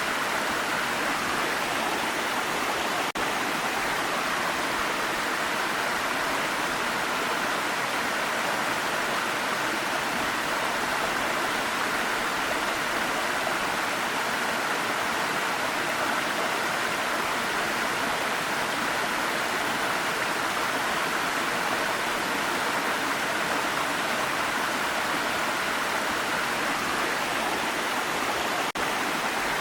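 Waterfall: a steady, unbroken rush of falling water, with two momentary dips in level, about three seconds in and near the end.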